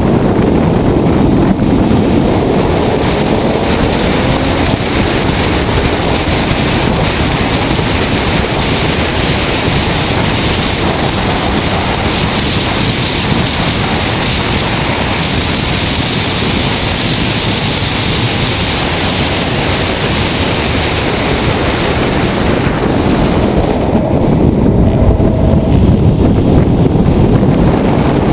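Heavy wind rush buffeting the microphone of a camera on a car at track speed, over the road and tyre noise of an all-electric 1995 BMW M3 race car. There is no engine note, only a faint whine rising in pitch in the first few seconds. Near the end the rush gets louder and deeper.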